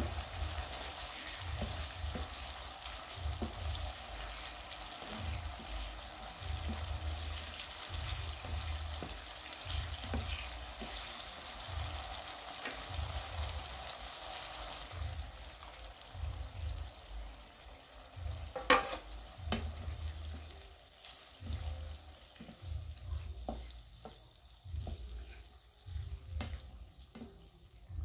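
Vegetables in a yogurt-based sauce sizzling in a frying pan while a wooden spoon stirs and scrapes them in slow, regular strokes. A sharp knock of the spoon against the pan comes about two-thirds of the way through, and the sizzle dies down over the last several seconds.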